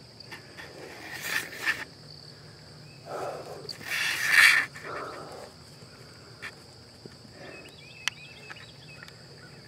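Steady high-pitched insect chorus in a field, broken by two loud rustling scuffs close to the microphone, about one and a half and four and a half seconds in.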